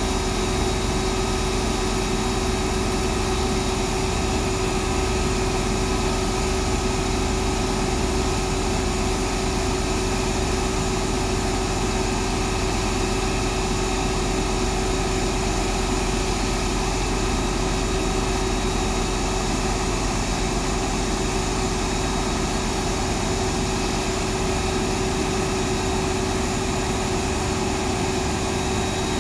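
Isuzu Giga fire truck's diesel engine running steadily, with a constant hum and whine that does not change, while it drives the fire pump feeding the roof water cannon.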